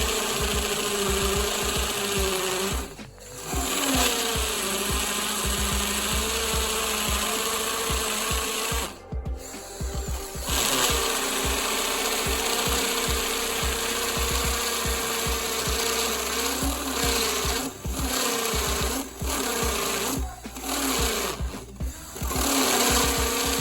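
Ronix 8018 cordless drill in hammer-drill mode running a step bit through a steel door. The motor runs at a steady whine under load and the trigger is let off and squeezed again several times: once about 3 s in, for over a second around 9–10 s, and in a few quick stops near the end.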